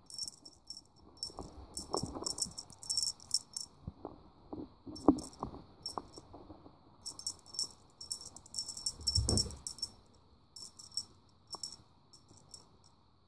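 Small metal bell on a dangling cat toy jingling in short bursts as it is shaken and batted, with soft knocks and rustles underneath and a dull thump about nine seconds in.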